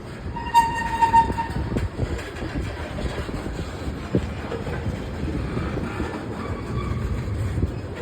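Freight cars of a CSX local freight train rolling past with a steady rumble and the clatter of wheels over the rails. A brief high squeal comes about half a second in and lasts about a second.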